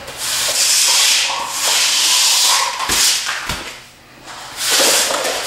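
A broom sweeping a concrete garage floor in long scraping strokes, with two low thumps about three seconds in.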